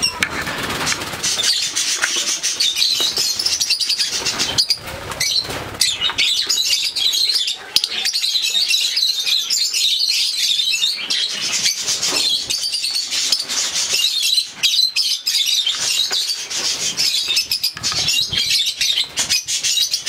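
Many lovebirds chattering and chirping without a break, with repeated wing flapping from birds crowded in a small wire carrier cage.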